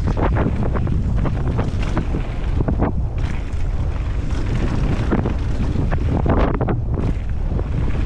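Wind rushing over the microphone of a helmet-mounted camera on a fast downhill mountain bike descent, over a constant rumble of tyres on a dry dirt trail. Frequent short rattles and knocks run through it.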